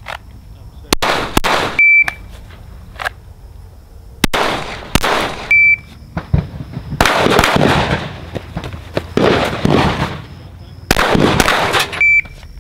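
Electronic shot timer beeping three times, each beep followed by strings of rapid 9mm pistol shots that ring out after each shot, with the densest string in the middle.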